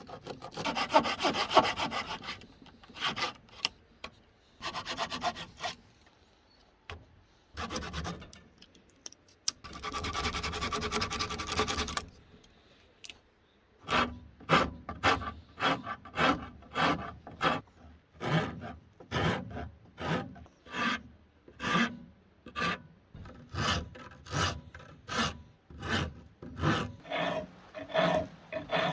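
Hand rasp worked across wood: a few long scraping passes, then from about halfway a steady run of short strokes, about three every two seconds.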